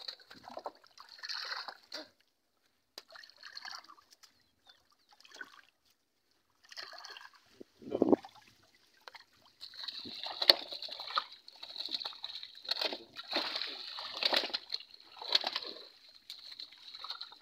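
Water splashing and sloshing in short irregular bursts as fish thrash in a net pulled up in shallow pond water and are handled into a tub. The splashing grows busier and louder in the second half.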